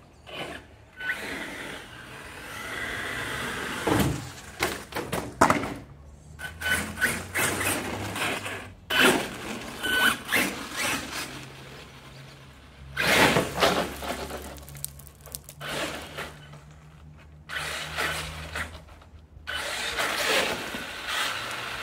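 Savage XL Flux electric RC monster truck being driven hard: its motor running and tyres scrabbling, broken by repeated knocks and thuds from jumps, landings and tumbles, the loudest a few seconds in and again about halfway through.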